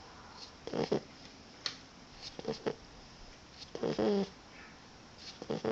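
A sleeping Boxer puppy snoring: about four short, rasping snores a second or so apart.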